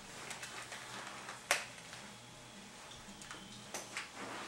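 Quiet handling sounds of a cardboard shipping box being cut open with a blade, with one sharp click about a second and a half in and a couple of fainter clicks later.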